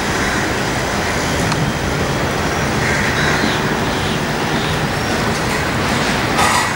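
Steady jet roar of a Boeing 787's two engines as it climbs out after takeoff, blended with city traffic noise.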